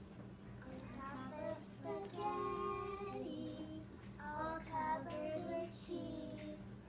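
Children singing a song, with a longer held note a little over two seconds in, over a low steady hum.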